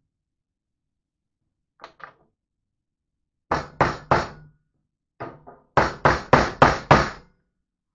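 Hammer striking a bent metal part of a trike bike basket: two faint taps, then groups of louder knocks, ending in five quick strikes about three a second.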